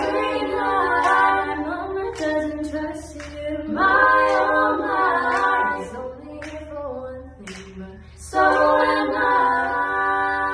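Three girls singing together a cappella in a restroom, with no accompaniment, in three phrases that start at the beginning, about four seconds in and about eight seconds in, with short pauses between.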